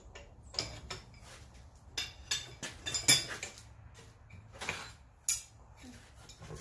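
Blacksmith's steel tools clinking and knocking against a steel bar as it is handled and twisted: a string of irregular sharp metal clinks, the loudest about three seconds in and again past five seconds.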